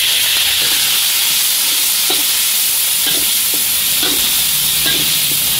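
Ready-made spice paste sizzling as it fries in a little hot oil in an aluminium wok, with a metal spoon scraping it off a plate and stirring it against the pan in several short scrapes and clinks.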